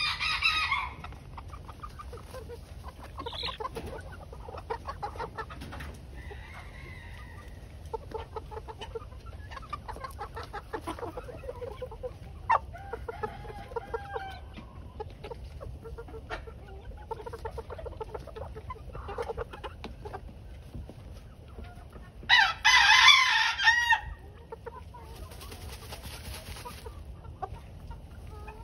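Young cockerels clucking softly throughout, with a rooster crowing twice: a short crow at the very start and a longer, loud crow about three quarters of the way through.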